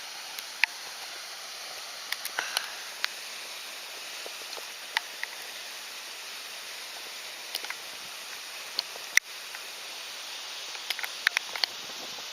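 Scattered sharp ticks of the first hailstones striking, irregular and growing more frequent near the end, over a steady outdoor hiss of rain and running water.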